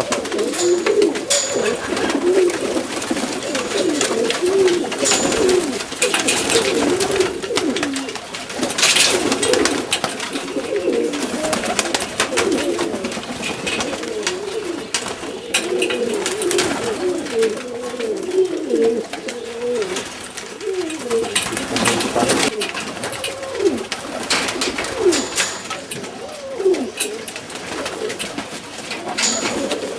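A loft of Macedonian Donek pigeons cooing, many overlapping coos running on without a break. Short sharp clicks are scattered through it.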